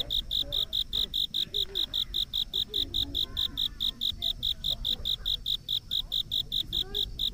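An insect, cricket-like, chirping steadily at about five high-pitched chirps a second, with a low rumble beneath.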